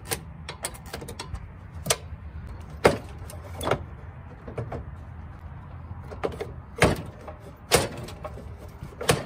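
Hand tools clinking and knocking on metal as the riding mower's drivetrain is adjusted: about ten irregular sharp clicks, a few of them ringing briefly, over a low steady hum.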